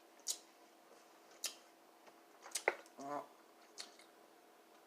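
Wet mouth smacks of someone eating with their mouth open, as short isolated clicks about a second apart, with a brief closed-mouth "mm" about three seconds in.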